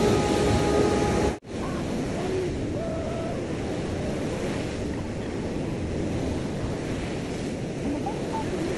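Ocean surf breaking and washing up a sandy beach, with wind buffeting the microphone. For the first second and a half a steady hum rides over the surf, then the sound drops out for an instant.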